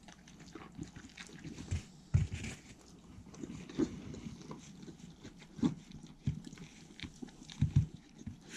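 Two Welsh corgis chewing and licking from a small ceramic bowl, with irregular clicks and a few louder thumps.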